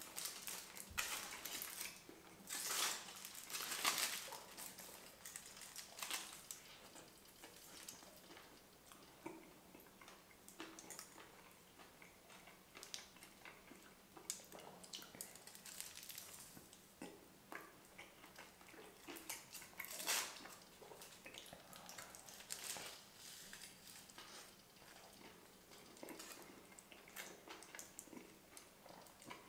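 Eating a foil-wrapped chicken shawarma up close: chewing and mouth sounds mixed with the crinkle of the aluminium foil as the wrap is handled, in irregular bursts, louder about a second to four seconds in and again about twenty seconds in.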